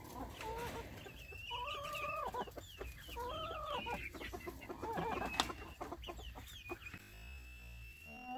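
A flock of chickens clucking and calling, with one sharp click about five seconds in. Near the end the calls die down and a steady high tone comes in.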